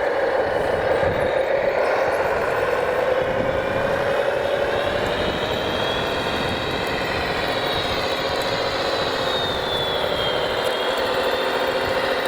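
Steady whine of a radio-controlled scale construction model's electric motor, its pitch drifting gently up and down as the machine works.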